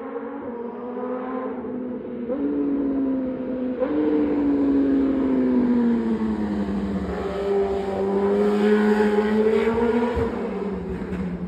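BMW S1000RR superbike's inline-four engine running. Its pitch steps up twice in the first few seconds, sinks slowly, climbs again and drops near the end.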